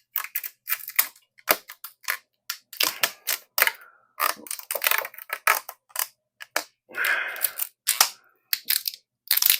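Tubeless rim tape being worked down onto a bicycle wheel rim at the tape's overlap: an irregular run of sharp crackles and clicks, some in quick clusters.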